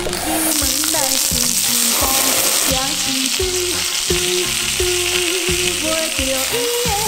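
Split king crab legs sizzling on a hot oiled griddle slab over an open fire: a steady, dense frying hiss that sets in about half a second in.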